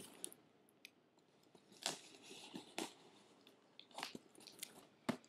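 Mailed cardboard package being cut and pried open with a folding knife: scattered crisp crunches and clicks, about five sharp ones, over faint rustling of cardboard and tape.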